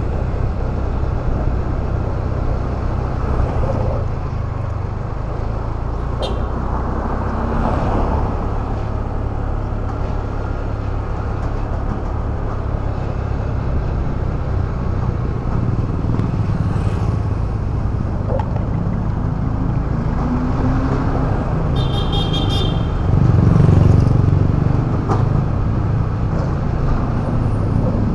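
Motorcycle engine running steadily under road and city-traffic noise as it rides along. A brief vehicle horn toots about six seconds in, and a louder, pulsing horn sounds about 22 seconds in, followed by a short swell of low rumble.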